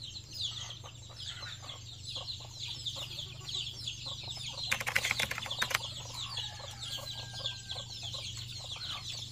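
A flock of chickens clucking and peeping while they feed, many short high falling calls one after another, with a brief noisy burst about five seconds in. A low steady hum runs underneath.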